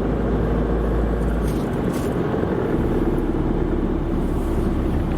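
A car driving along, with a steady engine drone and road rumble; the low drone drops slightly in pitch about a second and a half in.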